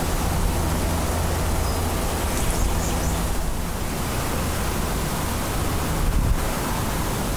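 Delta Boeing 757-232's Pratt & Whitney PW2000-series jet engines passing overhead, heard as a steady, even rumble.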